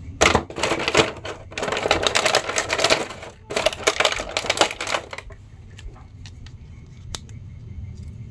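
Clear plastic blister packaging crinkling and crackling as toy action figures are pulled out of it by hand, busy for about five seconds, then only a few light clicks, with one sharp click near the end.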